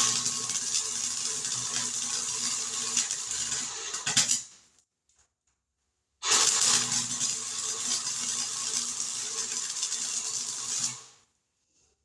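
Welding arc on sheet-metal patch panels, burning two runs of about four to five seconds each with a steady crackle and hum, starting and stopping abruptly.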